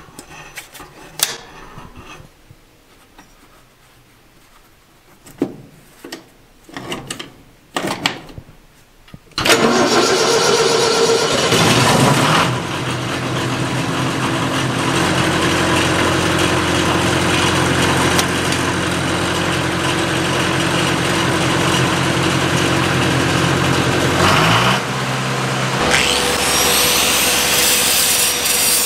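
A few clicks as switches are worked on the panel of a Miller Big D2 diesel welder, then its diesel engine starts about nine seconds in and runs steadily. Near the end the engine note drops and an angle grinder spins up with a high whine over it.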